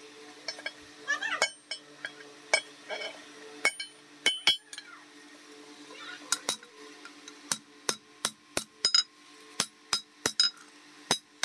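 Hand hammer striking a red-hot steel blade on a steel anvil block, each blow a sharp metallic clink. A few scattered strikes come first, then from about two-thirds in a steady run of blows at roughly two to three a second.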